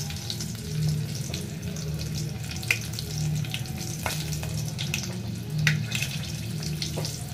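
Crushed garlic cloves sizzling in hot oil in a pot, with scattered sharp pops as the oil spits, over a steady low hum.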